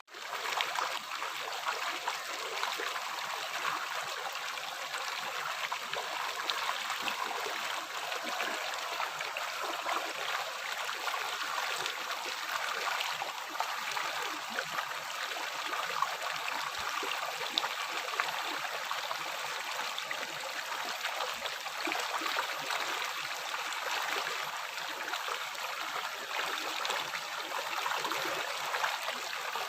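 River water flowing over rocks: a steady, even rush of water with little low rumble. It cuts out for an instant at the very start.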